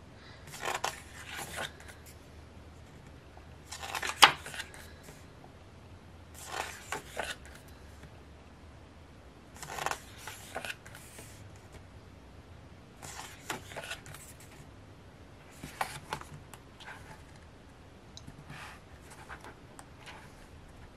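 Pages of a photobook being turned one after another by hand: a short paper swish every three seconds or so, about seven in all.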